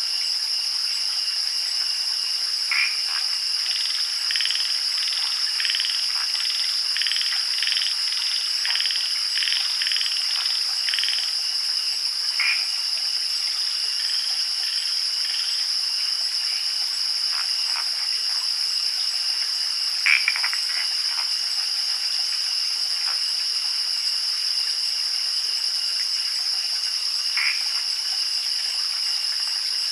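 Night ambience of a steady, high-pitched insect chorus such as crickets, with frog calls pulsing for a stretch in the first half and a few single calls later.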